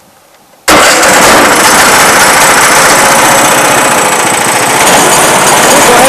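Sawmill's small gasoline engine started with the key: it catches abruptly about 0.7 seconds in and then runs loudly and steadily.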